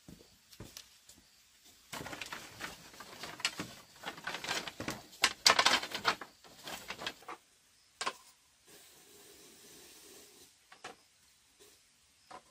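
Rustling and clattering of things being handled, with a dense run of knocks and scrapes in the middle. A single sharp knock follows, then a faint steady hum and a few light clicks.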